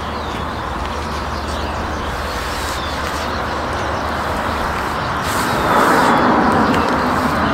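Steady rushing noise of passing road traffic, swelling louder about six seconds in.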